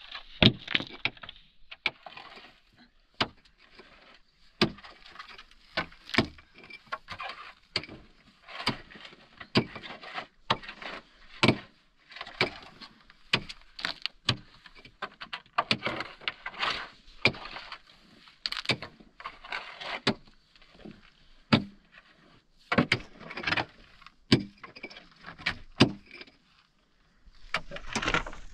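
Long-handled digging tool striking packed earth and gravel again and again, roughly once or twice a second, with scraping of loose soil between the strikes.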